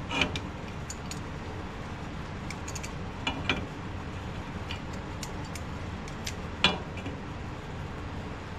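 Vise grips and other metal tools clinking and clanking against a steel drill press vise and table as a workpiece is clamped: a few sharp metallic clinks, the loudest about two-thirds of the way in, over a steady low hum.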